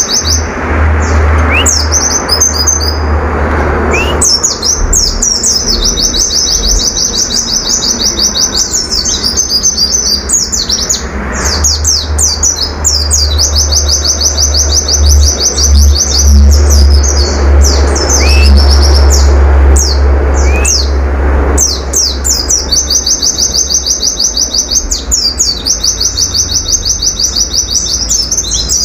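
A caged pleci (white-eye) singing its rapid 'nembak' song: long runs of fast, high-pitched trilling, each lasting several seconds, broken by short gaps with a few quick rising whistled notes. A steady low hum runs underneath.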